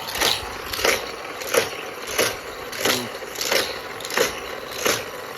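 Motorized Hot Wheels race track running, with toy die-cast cars zipping around it: a rushing whoosh about every two-thirds of a second, eight in all, over a steady motor whir.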